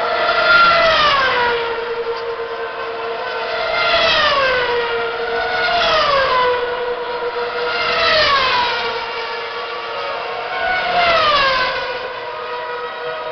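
2010 Formula One cars' 2.4-litre V8 engines running at high revs as they pass one after another, five high-pitched notes that each fall in pitch as a car goes by, over a steady engine drone.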